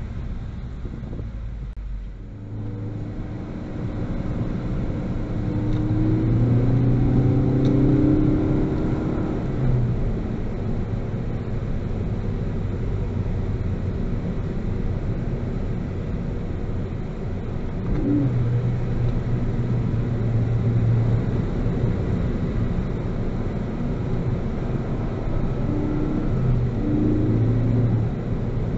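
Stock 2018 Ford Focus ST's turbocharged 2.0-litre four-cylinder heard from inside the cabin, its note rising as the car accelerates a few seconds in, then running steadily at cruise over tyre and road noise. The engine comes on stronger twice more later.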